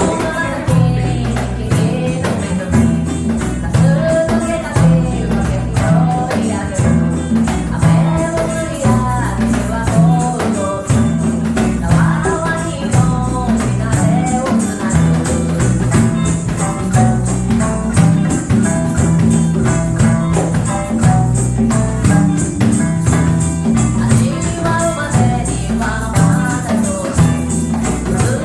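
Live band playing a reggae-style song: a bass line under a steady tambourine or shaker beat, with a melody line on top.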